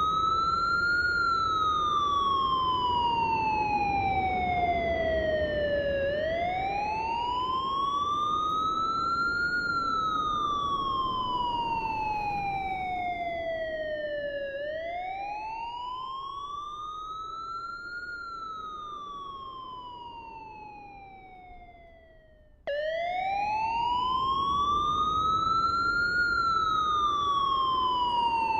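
Siren wailing in slow repeated cycles: the pitch climbs quickly, then glides down over about five seconds, about every eight seconds. Around twenty seconds in the sound fades away, then cuts back in at full loudness.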